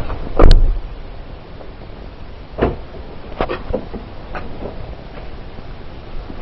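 A heavy thump about half a second in, then a sharper knock and a few lighter knocks and clicks, inside a car.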